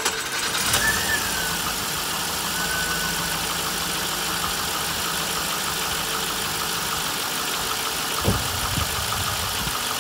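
Holden Commodore engine catching just as cranking ends, revving briefly about a second in, then idling steadily. The owner calls the start a little sketchy after the car sat for several days, and calls the engine loud, putting it down to lifters or rockers that need fixing. A single knock sounds a little after eight seconds.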